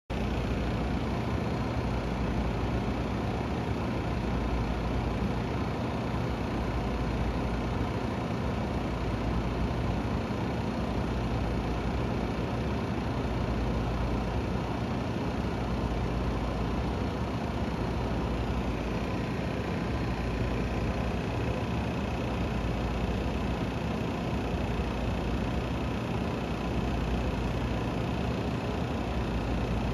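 Saltwater aquarium's pump and aeration running: a steady low hum with the noise of rising air bubbles.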